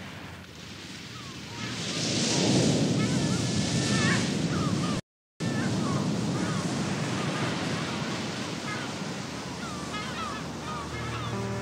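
Ocean surf washing over rocks, swelling as a wave breaks about two seconds in, with gulls giving short calls over it. The sound drops out completely for a moment about five seconds in, and music begins near the end.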